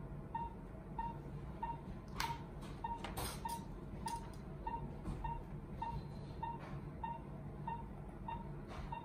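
Patient monitor's pulse oximeter beeping in time with the heartbeat, a short steady tone about one and a half times a second, with a few brief rustles and clicks from handling the needle and drape.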